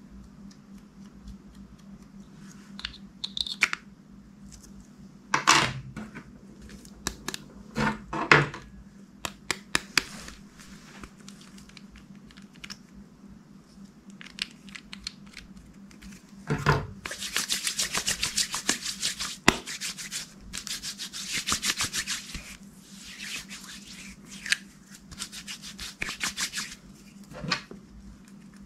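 Slime being squished, pressed and stretched by hand: scattered sticky clicks and pops, then, from a little past halfway, about ten seconds of dense fine crackling as air pockets in the slime pop.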